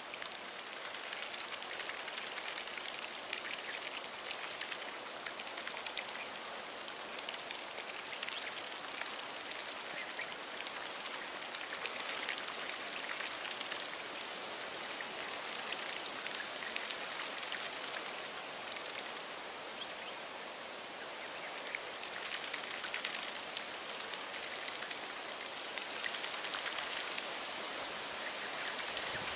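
Steady outdoor patter: a dense hiss of fine crackles like light rain falling on water and leaves, even throughout, with no clear calls.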